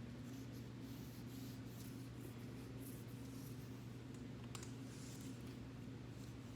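Faint scratching and small clicks from hands working on a clear plastic poster frame while super glue is applied along its edge, with one sharper click partway through. A steady low hum runs underneath.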